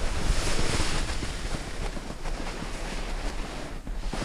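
Snowboard sliding and carving over snow, a steady hissing rush like surf, mixed with wind buffeting the GoPro's microphone; loudest about half a second in, with a brief dip near the end.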